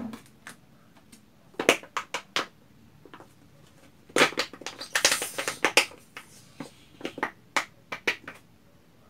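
Pink glue-and-detergent slime being squeezed out of an upturned plastic bottle: sticky clicks, pops and squelches with the crackle of the bottle's plastic, in three short bouts.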